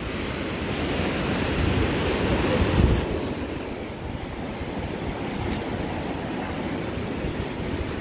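Rough sea breaking on a sand beach: a steady wash of surf with wind on the microphone. The surf swells to its loudest near three seconds in, then eases a little and carries on.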